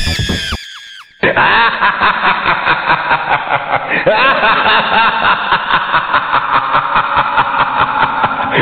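Dance music cuts off in the first second. After a short pause, a crowd laughs and shouts over one another.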